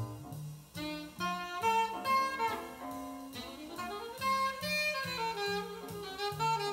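Jazz from a vinyl record played over hi-fi loudspeakers: a fast saxophone solo line over a walking double bass.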